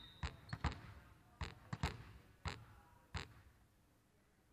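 Volleyball bounced on a hardwood court floor before a serve: about eight sharp slaps, unevenly spaced over the first three seconds, then quiet. A referee's whistle ends about half a second in.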